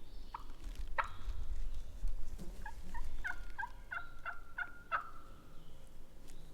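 A run of about eight short turkey calls over roughly two and a half seconds, evenly spaced at about three a second, with a sharp snap about a second before them.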